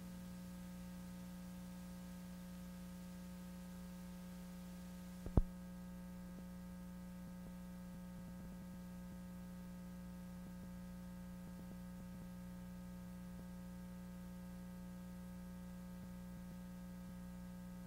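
Steady low electrical hum, mains-type with a ladder of fainter overtones, on the audio track as the recorded programme ends and the videotape runs on blank. One sharp click about five seconds in.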